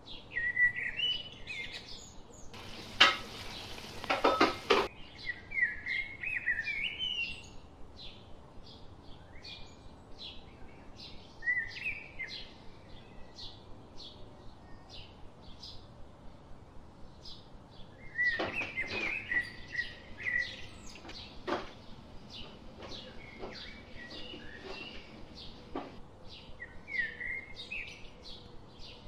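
Birds chirp again and again in short rising calls. About three seconds in, boiled pasta pours noisily out of a metal colander into the pan. Later there is a run of sharp clinks of a utensil against the pan.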